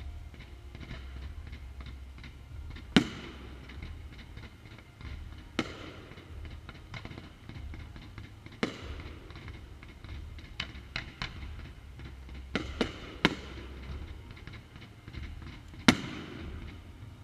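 Fireworks display: aerial shells bursting with sharp, uneven bangs every few seconds, the loudest about 3 s in and near the end, with a quick cluster of three reports around 13 s and smaller crackles between.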